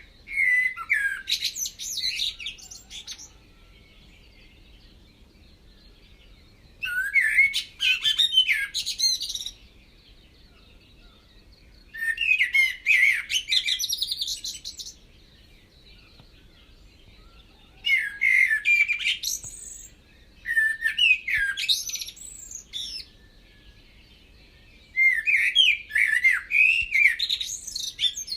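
Bird song: six warbling, chirping phrases of two to three seconds each, spaced a few seconds apart.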